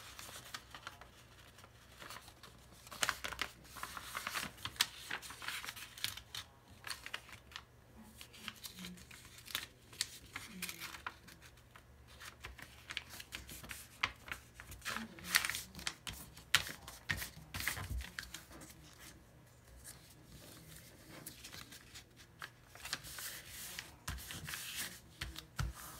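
A sheet of printer paper being folded in half and creased by hand on a tabletop: intermittent rustling and sliding with short sharp crinkles in bursts as the folds are pressed flat.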